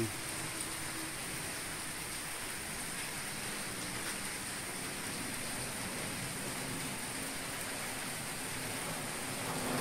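Steady rain falling on a wet paved street and its puddles, an even hiss with no breaks.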